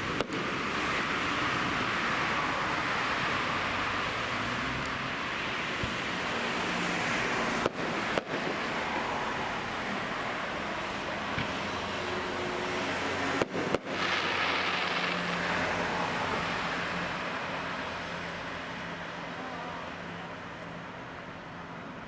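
Fireworks spraying with a steady hiss, broken by a few brief cutouts, then fading over the last several seconds.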